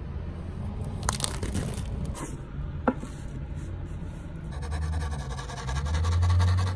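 Plastic shrink-wrap crinkling and tearing as it is pulled off a gessoed hardboard panel, with a few sharp crackles and scrapes of the board being handled. From about four and a half seconds in comes a fast, even run of scratching, like pencil strokes on the board.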